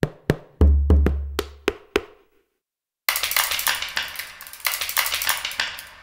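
Sampled Celtic percussion from a software instrument. First comes a handful of bodhrán frame-drum hits over about two seconds, one of them with a deep booming low note. After a short gap, a fast run of clattering bones follows with a big hall reverb.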